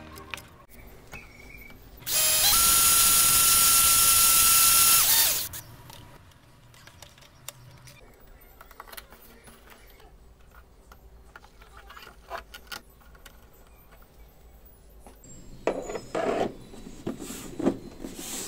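Electric drill running for about three seconds with a steady whine, boring a hole through the 3D-printed PLA hull. Near the end come handling knocks and rubbing against the hull.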